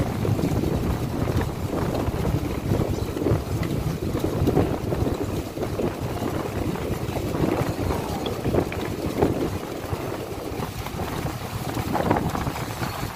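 Purse seine fishing boat under way at sea: wind buffeting the microphone over water rushing and splashing along the hull, in uneven gusts.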